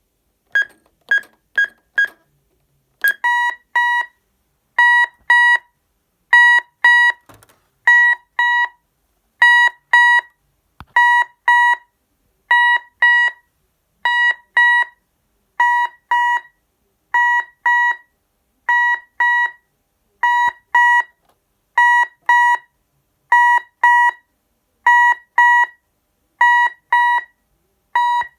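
1999 Texecom Veritas 8 Compact intruder alarm panel sounding its old-style alarm tone. Four quick higher beeps come first, then a steady repeating pattern of two beeps about every second and a half.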